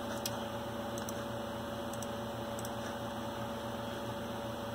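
Steady electrical hum with a few faint, light clicks from a computer mouse as a settings dialog is opened in the CAM software.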